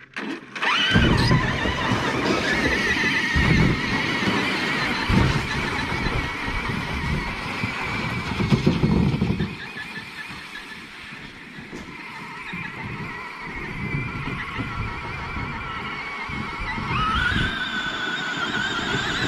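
RC car's motor whining under load as it tows a plastic boat over dirt, its pitch wavering and rising near the end, with the low scraping rumble of the hull dragging along the ground.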